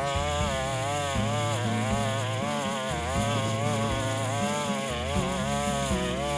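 Small 25.4cc two-stroke petrol engine of a Mitox 28MT garden multi-tool running at high revs. Its pitch wavers up and down constantly as the throttle and the load change.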